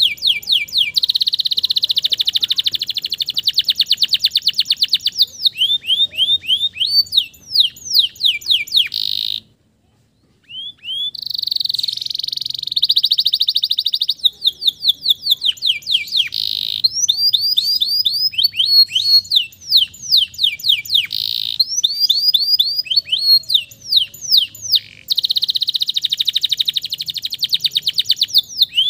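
Male domestic canary singing a long song of rapid trills and fast repeated rising and falling notes, with a break of about a second near the middle.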